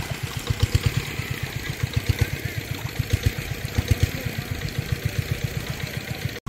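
A small engine running at idle with a rapid, even thumping beat.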